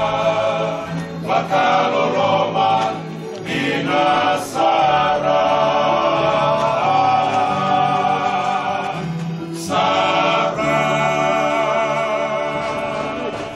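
A choir singing a hymn, several voices holding long notes in phrases, with short breaks between phrases; the singing stops at the very end.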